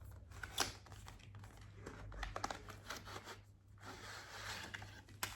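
Gimbal box packaging being opened and handled: scattered crinkling and tearing with small knocks and clicks.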